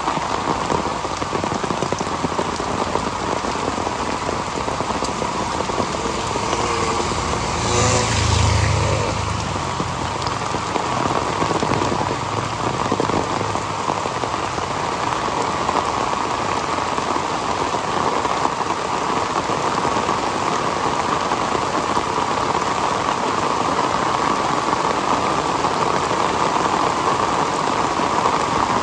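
Heavy rain falling steadily on surfaces. About eight seconds in, a louder low rumble with a swishing hiss swells for two or three seconds, then fades.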